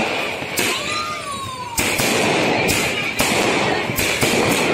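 Diwali fireworks: a continuous hissing, crackling spray of firecrackers with sharp bangs cracking out every second or so, and a short falling whistle about a second in.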